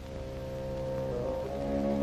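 Orchestral film score coming in softly with sustained chords that swell louder, more voices entering about a second and a half in.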